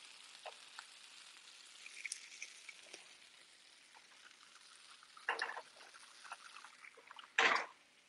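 Faint sizzle of barnyard-millet dhokla slabs frying in a nonstick grill pan, with light ticks as a knife touches the pan. Two short, louder noises come in the second half, about two seconds apart.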